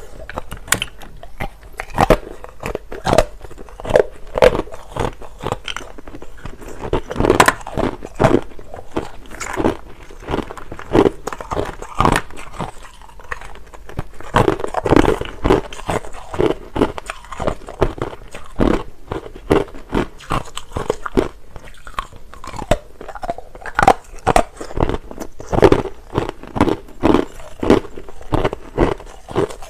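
A person biting and chewing hard crushed ice close to the microphone: a rapid, irregular run of loud, sharp crunches, several a second.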